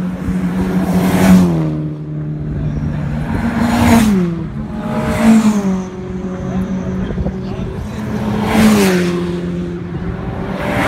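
Cars passing one after another at speed on a race track, each engine note dropping in pitch as it goes by. Four go past, and another arrives at the very end.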